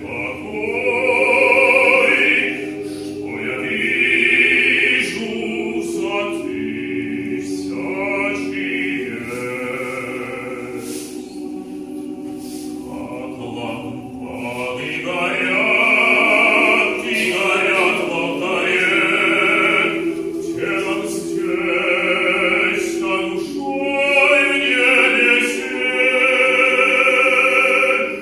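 Small male vocal ensemble singing an unaccompanied sacred song in several-part harmony, with long held notes.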